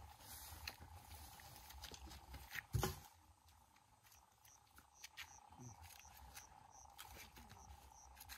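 Faint scrapes and clicks of knives peeling green bananas (matoke) by hand, with one louder knock about three seconds in, over a faint steady hum.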